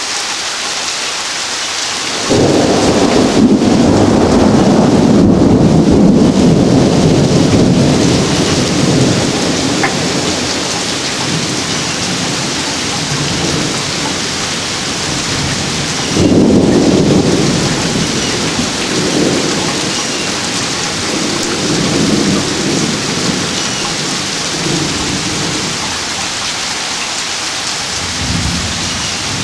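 Thunderstorm: steady rain with two long rolls of thunder. The first peal starts suddenly about two seconds in, and the second comes about halfway through and rumbles on in swells for several seconds.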